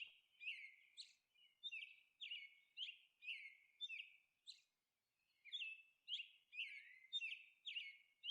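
Faint bird chirping: short, downward-sliding chirps repeated about twice a second, with a break of about a second around the middle.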